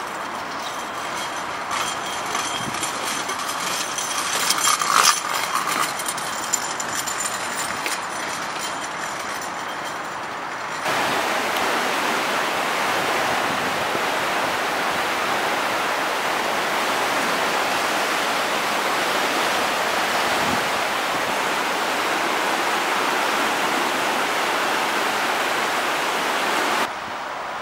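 Rushing water of a river in flood, a steady noisy wash. It gets louder after a cut about eleven seconds in, where the muddy flow churns through a narrower stretch, and drops back near the end. A few brief clatters sound around five seconds in.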